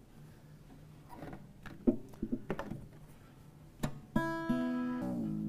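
Bob Deacon handmade archtop jazz guitar: a few light knocks from handling the instrument, then a chord strummed on its old strings about four seconds in, ringing on with the notes shifting twice.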